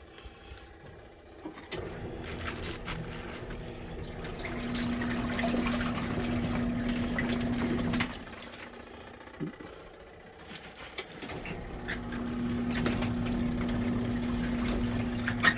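Portable twin-tub washing machine agitating a load: the wash motor hums steadily while water churns in the tub. About halfway through the motor stops, and a few seconds later it starts again as the agitator reverses direction.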